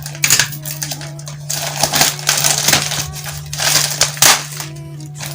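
Packaging being crinkled and crumpled by hand as a parcel is unwrapped, in a series of irregular short rustling bursts, over a steady low hum.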